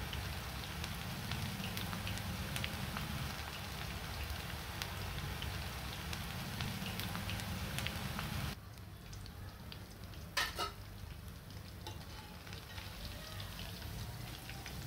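Chicken pakoras deep-frying in hot oil, a dense crackling sizzle. Just past halfway it drops suddenly to a quieter, thinner sizzle, and a wire skimmer clinks once against the pan.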